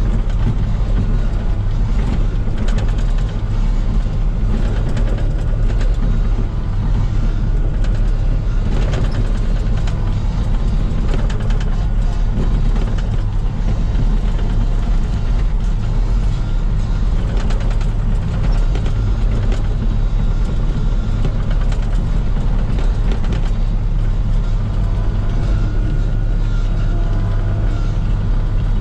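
Komatsu PC16 mini excavator's diesel engine running steadily under work, a continuous low drone with faint scattered knocks.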